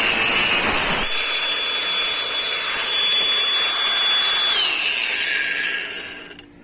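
Craftsman V20 brushless angle grinder with a cutting disc cutting metal, loud and harsh for about the first second. It then runs free with a steady high whine, and near the end the whine drops in pitch and fades as the motor spins down after the trigger is released.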